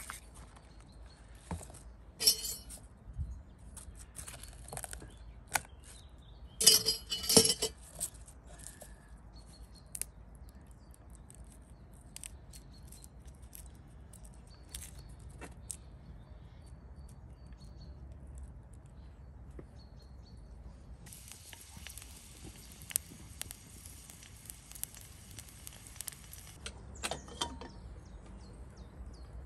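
Kitchenware being handled: scattered light clinks and knocks, the loudest a couple of seconds in and again around seven seconds in, with a steady hiss lasting about six seconds near the end.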